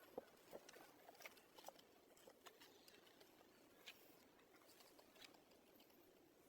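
Very faint scattered clicks and rustles with a few brief squeaky sounds, most of them in the first two seconds and a couple more later.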